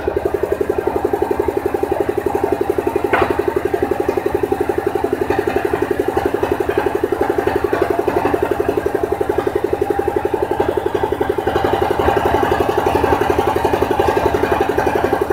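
Engine of a mobile circular saw bench running steadily with a rapid, even throb, the saw blade spinning free between cuts. It gets slightly louder from about twelve seconds in.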